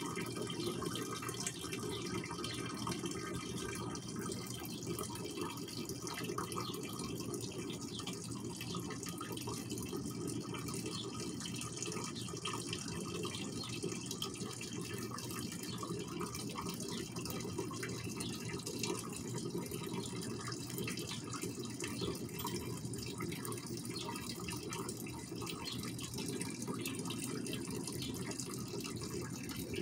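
A steady rushing noise, with faint, short, high-pitched cheeps from house finch nestlings begging to be fed.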